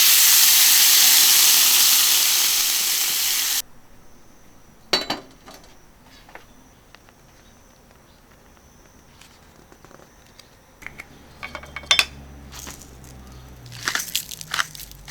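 Meat sizzling loudly on a hot iron griddle, an even hiss that cuts off abruptly after about three and a half seconds. Then quieter, scattered clinks and knocks of metal utensils and dishes, with a cluster of clicks near the end.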